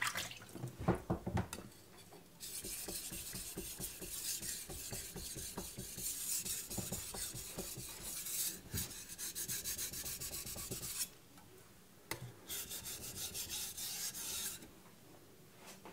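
Aogami #2 carbon-steel kiritsuke bunka blade being sharpened on a wet Naniwa Pro 1000-grit whetstone: a scratchy rasping in quick back-and-forth strokes while a burr is being raised. A few knocks come in the first two seconds, then a long run of strokes, a pause, and a shorter run near the end.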